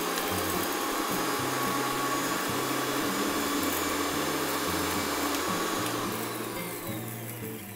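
Electric mixer grinder running with its small stainless-steel jar, dry-grinding cardamom pods, dry ginger and dry coconut to a powder; the motor slows and stops near the end.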